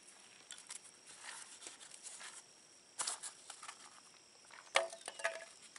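A foam bait cup of nightcrawlers being handled and its lid pried open: faint scratchy rubbing with sharp snaps about three seconds in and near the end, followed by a short squeak.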